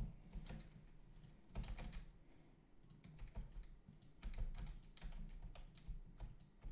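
Computer keyboard and mouse clicking at irregular intervals, a scatter of faint short clicks as the Ctrl+K shortcut is used to break shapes apart.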